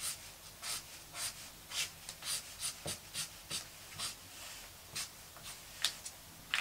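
Red felt-tip marker scribbling back and forth on paper, colouring in a cut-out egg shape: a steady run of short scratchy strokes, roughly two a second.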